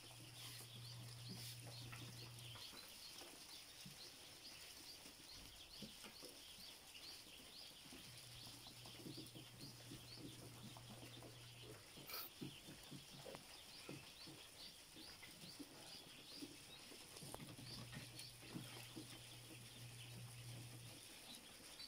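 Faint chorus of many ducklings peeping continuously, with a low hum that comes and goes three times.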